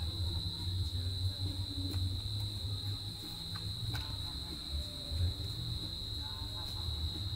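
Crickets or similar night insects trilling in one steady, unbroken high-pitched note, over a low rumble, with a couple of faint clicks.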